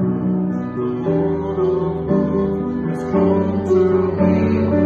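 A man singing a song into a microphone with instrumental accompaniment, held notes changing every second or so.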